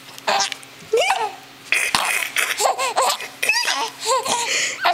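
Infant giggling and laughing in a string of short, high-pitched bursts.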